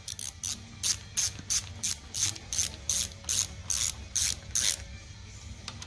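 Hand ratchet wrench clicking in a steady rhythm, about three clicks a second, as it runs a bolt down on an engine's cylinder head. The clicking stops about five seconds in.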